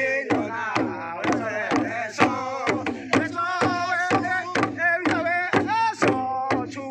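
Group of voices singing a chant-like song over a tifa hand drum beaten steadily about twice a second.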